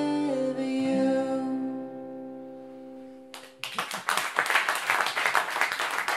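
The closing note of a song: a held sung note over a ringing acoustic guitar chord, fading away. About three and a half seconds in, the audience breaks into steady applause.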